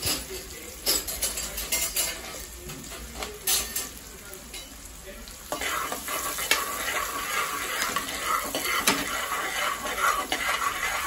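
Chopped onions sizzling as they fry in groundnut oil in an aluminium pressure cooker, with a metal spoon clicking and scraping against the pot as they are stirred. About halfway through, the sizzle turns louder and denser.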